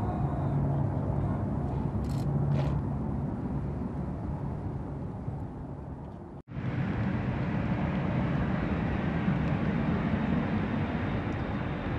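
Boeing C-17 Globemaster III's four Pratt & Whitney F117 turbofans rumbling as the jet climbs away after take-off, the sound slowly fading. After an abrupt cut about six and a half seconds in, the same type of jet is heard on final approach to land, with a steady engine rumble and a faint high whine.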